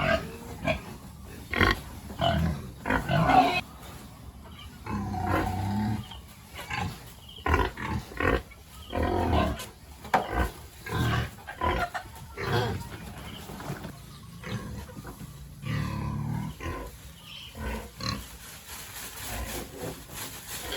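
Pigs grunting in short, irregular calls that come one after another, some louder than others.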